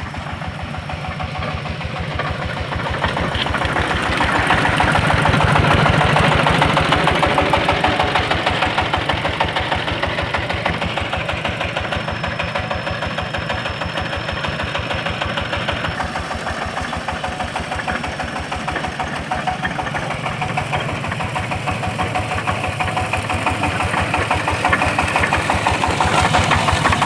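Small engine of a soil-crushing mill running steadily with a fast, even beat as it drives the crusher while lumps of clay are fed in. It is somewhat louder a few seconds in.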